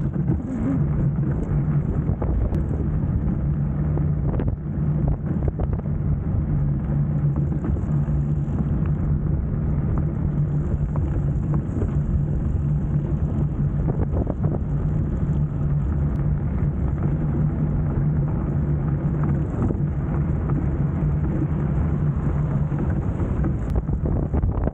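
Fat-tyre electric bike riding on wet, slushy asphalt: steady tyre and road noise over a low hum, with a few brief knocks from bumps.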